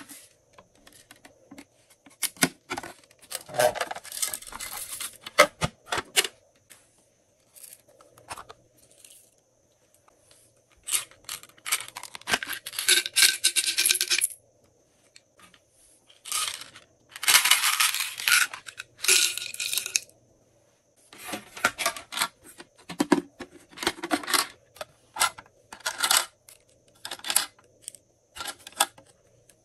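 Small plastic decorations such as beads and sequins rattling as they are shaken and tipped out of plastic containers and a bottle into a tray of slime. The clattering comes in several irregular bursts of a few seconds each, with short pauses between them.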